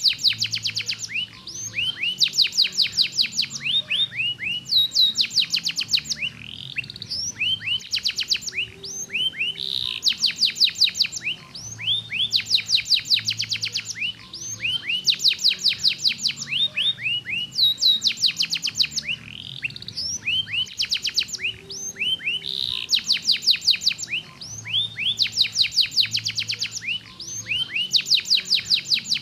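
Domestic canary singing a long, continuous song: phrase after phrase of fast trills made of short rising notes, with brief breaks between the phrases.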